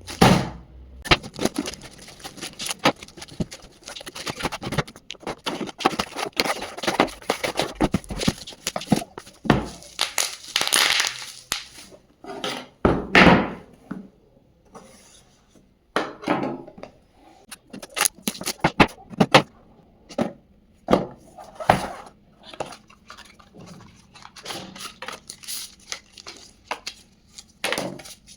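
Hands unboxing a smartphone: a cardboard retail box and its packaging being opened and handled, with rustling and tearing, and many sharp clicks and knocks as the box, phone and accessories are set down and picked up.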